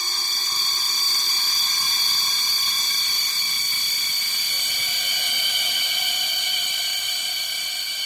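Cold rising ambience sound effect: a sustained sound-design drone of several high held tones layered over hiss, easing off slightly near the end.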